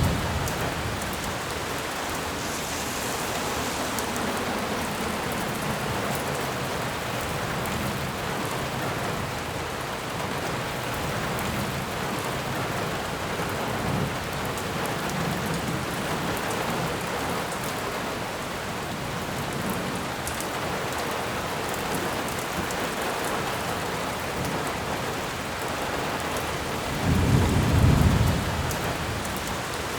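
Steady rain falling, with low thunder rumbling now and then and a louder roll of thunder near the end.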